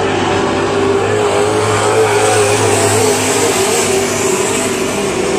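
Several dirt-track stock cars racing around an oval, their engines loud and steady, with a pitch that wavers up and down as they work through the turns.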